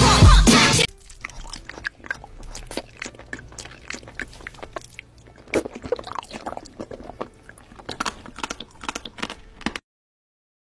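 Close-miked eating sounds: irregular crisp crunching and chewing clicks. They follow about a second of loud music that cuts off abruptly.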